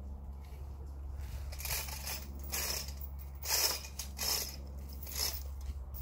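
Footsteps swishing through long grass and dead undergrowth, about five steps close to a second apart, over a steady low rumble.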